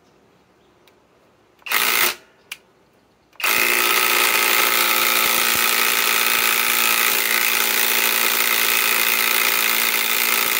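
Kobalt 24-volt right-angle impact wrench driving a 10-inch lag bolt into wood. A short burst comes a little under two seconds in, then the wrench hammers continuously and evenly from about three and a half seconds in.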